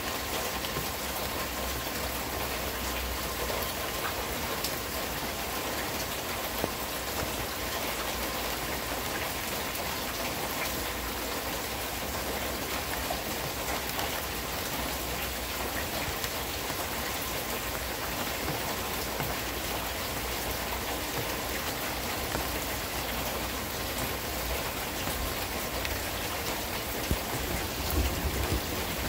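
Steady heavy rain falling in a thunderstorm, with scattered sharper drop ticks.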